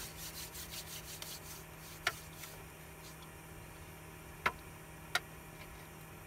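Closed Ridge Monkey pan cooking buttered bread and egg over a gas burner: faint crackling from inside the pan over a steady low hum. Three sharp ticks come about two, four and a half and five seconds in.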